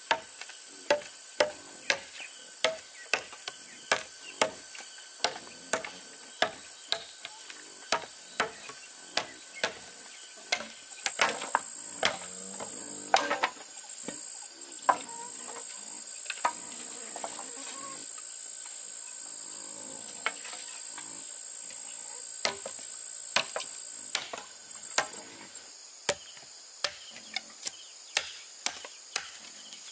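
Repeated sharp blows of a hand tool striking bamboo, about one and a half a second, with a quick flurry of blows near the middle, then fewer strikes before the steady rhythm returns. A steady high drone of insects runs underneath, loudest in the middle.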